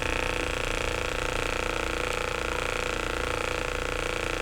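Electric heated massage device running on the shoulder blades: a steady hum with a fast, even pulse.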